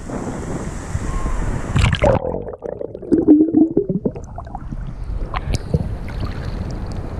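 Ocean surf washing over a camera held at the waterline. The rush of breaking waves turns suddenly muffled and gurgling about two seconds in as the camera goes under a wave, and the open surf sound gradually returns near the end as it comes back up.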